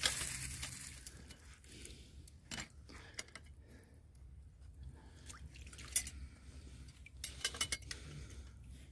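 Steel MB-750 foothold trap and its chain clinking as they are handled in shallow water, with water splashing and dripping. One sharp metallic clink about six seconds in, and a quick run of clinks near the end.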